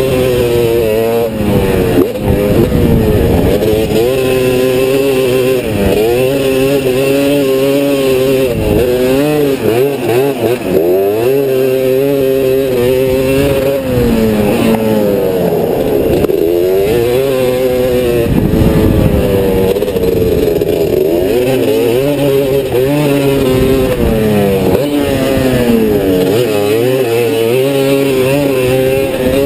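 Vintage racing three-wheeler's engine at full racing pace, close up from on board the machine. The revs climb and fall again and again as it accelerates and backs off, with short drops in pitch at each shift or lift.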